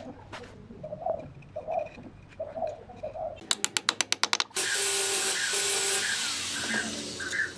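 A dove cooing repeatedly in short phrases. About three and a half seconds in, a quick rattle of clicks runs for about a second, followed by a louder steady scraping hiss lasting about three seconds.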